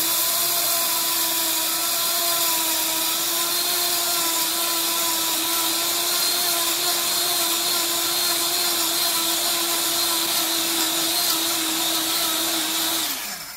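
Portable stainless steel high-speed dry grinder (JHR-30B type, spindle around 28,000 rpm) running at full speed with a steady high whine and hiss as it mills a dry charge, the unit rocked back and forth to keep the contents moving. Near the end it is switched off and the motor winds down, its pitch falling away.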